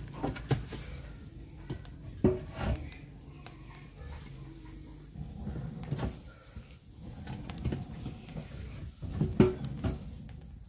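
Scattered sharp knocks and clatter, a few at a time, over a low background rumble.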